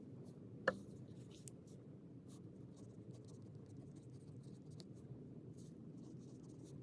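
Pen or pencil writing on paper, sped up to double speed, heard as faint, quick scratchy strokes. One brief, sharp, louder sound stands out just under a second in.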